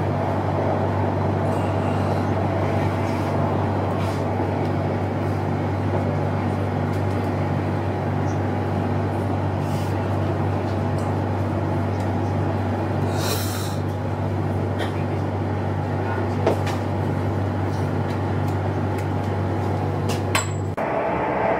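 Steady running noise inside a passenger train car: a constant low hum and rumble with a few faint clicks. The low hum cuts off suddenly near the end.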